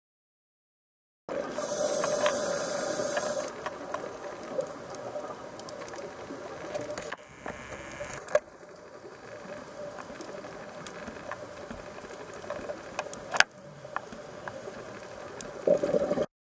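Underwater sound picked up by a small camera in its housing. It starts about a second in with a loud hissing rush for about two seconds, followed by a quieter watery wash with scattered clicks and pops, and cuts off abruptly.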